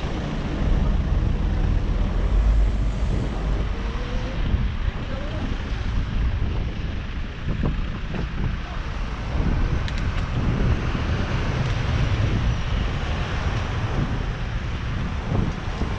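Wind buffeting a motorcycle rider's camera microphone, a heavy low rush, with the motorcycle's engine and road noise underneath; it swells and eases as the bike speeds up and slows.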